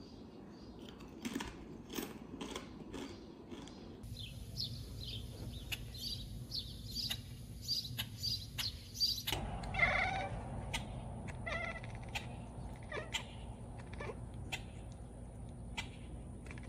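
Domestic cat at a window screen letting out a string of short throaty calls, from about halfway through, at a crow outside. Before that a bird chirps repeatedly outdoors.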